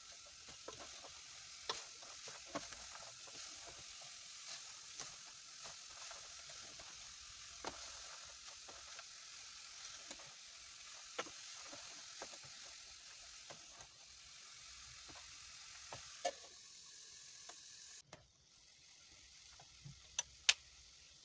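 Chopped red onions cooking dry, without oil yet, in an aluminium pot, with a steady sizzling hiss while a wooden spoon stirs and taps against the pot. The hiss drops away sharply near the end, followed by a few sharp taps of the spoon on the pot.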